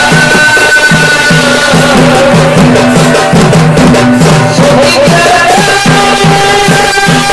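Purulia Chhau dance music played loud: barrel drums beaten with sticks in a fast, driving rhythm, under a high wind instrument holding long notes that slide at their ends.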